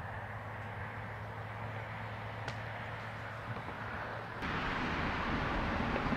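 Steady outdoor background noise with a low hum and one faint click about two and a half seconds in; the noise gets louder about four and a half seconds in.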